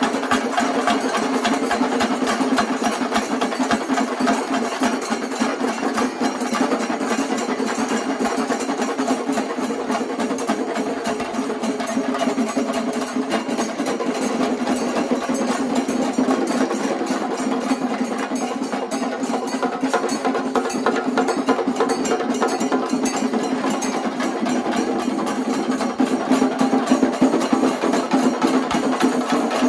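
Shingari melam: many chenda drums beaten with sticks by two troupes at once, a dense, fast, continuous roll of strokes that runs on without a break.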